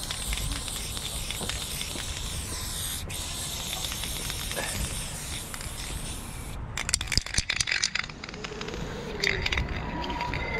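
Aerosol spray-paint can spraying in a steady hiss, broken off for a moment about three seconds in and stopping after about six and a half seconds; then a quick run of sharp clicks and rattles.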